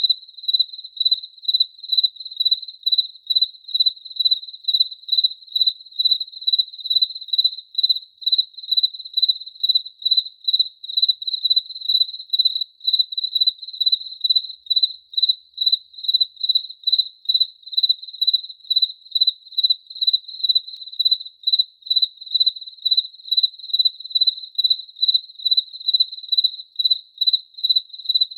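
A cricket chirping steadily: a single high, clear pitch repeated in even chirps about twice a second.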